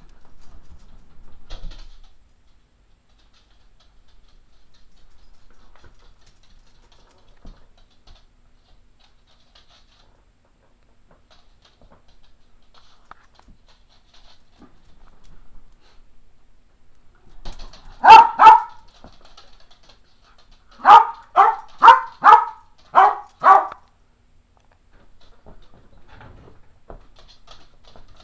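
Cairn terrier barking to be played with: two barks, then after a short pause a run of five sharp barks.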